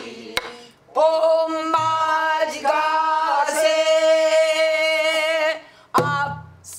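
A woman singing a line of a Korean traditional-style spring song in a full voice, holding one long note for several seconds. A buk barrel drum is struck with a stick once near the start and once near the end.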